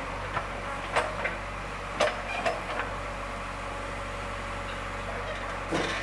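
JCB 3DX backhoe loader's diesel engine running steadily while its backhoe bucket digs into a dirt pile, with sharp metallic clanks and knocks from the bucket and linkage, the loudest about one and two seconds in.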